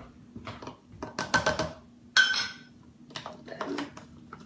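Clinking and tapping of a scoop against a cup and powder tub while protein powder is scooped into a shake, with one loud, ringing clink about two seconds in.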